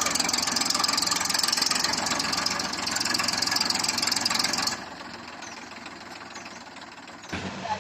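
Heavy diesel machinery engine running, loud and steady, then dropping sharply to a quieter level about five seconds in.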